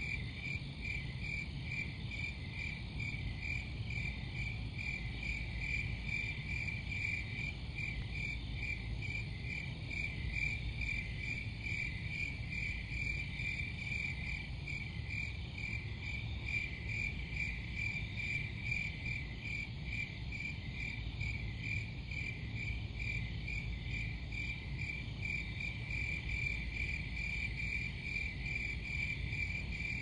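Crickets chirping at night in a steady, even rhythm of about three chirps a second, with a low rumble underneath.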